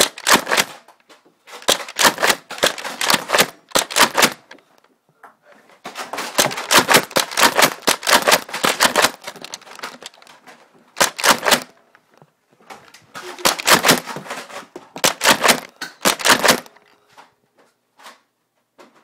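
Nerf foam-dart blasters being fired rapidly, a fast clatter of mechanism clicks coming in repeated bursts of up to about three seconds with short gaps between them. The bursts stop a couple of seconds before the end.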